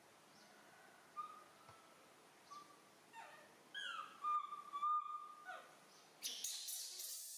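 Baby macaque giving a string of thin, whistle-like coo calls, several sliding down in pitch and one held steady for about a second: the calls of a hungry infant wanting milk. Near the end comes about a second of harsh, hissy noise.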